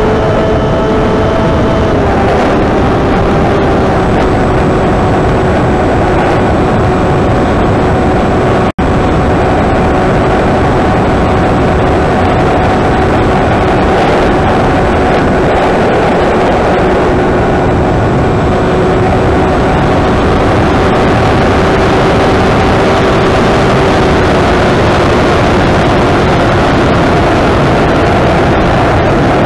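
Electric brushless motor and propeller of an FPV flying wing at full power, heard from the onboard camera, with heavy wind noise over the airframe. The motor's whine holds steady and shifts pitch about two seconds in; the sound drops out for a moment about nine seconds in.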